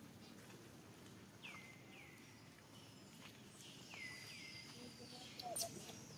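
Faint outdoor quiet broken by two pairs of short, high animal calls, each sliding down in pitch and then levelling off. A brief crackle comes near the end.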